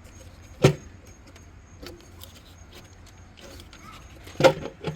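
Hands working on engine parts with tools: one sharp click a little over half a second in, a few faint clicks, then a quick cluster of knocks near the end, over a steady low hum.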